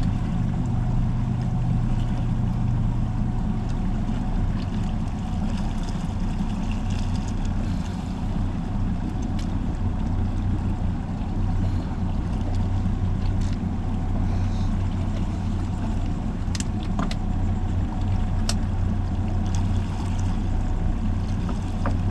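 The outboard engine of a 2017 Pursuit C 238 boat running steadily under way, a constant low hum with no change in pitch.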